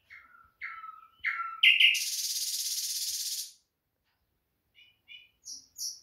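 Common nightingale singing in a cage: three short slurred whistles, then a loud rapid rattling trill lasting nearly two seconds, a pause, and a few short notes starting again near the end.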